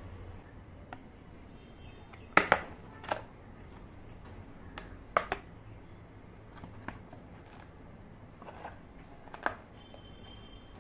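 Small miniature play-kitchen pieces clicking and tapping as they are handled and set down, in scattered bursts, the loudest a couple of seconds in and again about halfway through.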